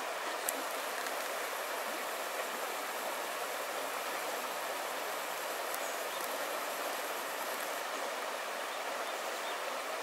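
Shallow river water running over a stony gravel bed: a steady, even rushing.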